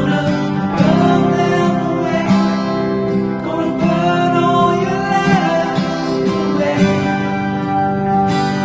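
Background music led by plucked and strummed acoustic guitar, with a singing voice.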